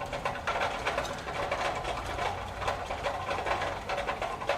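Janome New Home Combi DX 502 sewing machine running steadily, its needle mechanism making a fast, even rattle of repeated strokes.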